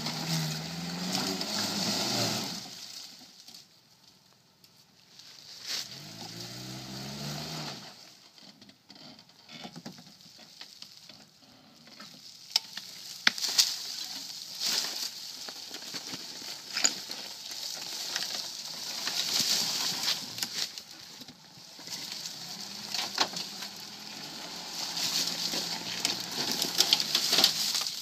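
Suzuki Sidekick four-cylinder engine revving as it claws up a steep dirt slope, over the crunch and crackle of tyres churning through dry leaves, with sharp snaps of twigs and branches. The engine rises in pitch near the start and again about six seconds in. Through the middle the crackling and snapping of debris is the main sound, and the engine runs steadily under load again in the last few seconds.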